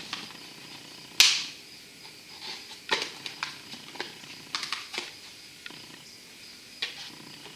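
Irregular light clicks and knocks of hard plastic and metal as a pop-can putt putt engine's tubes are fitted through the hull of a plastic toy boat, with one sharper knock about a second in.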